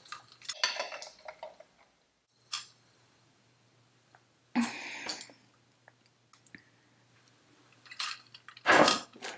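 A few separate clinks and knocks of a drinking glass and its metal straw being handled and set down, with quiet between them; the loudest comes near the end.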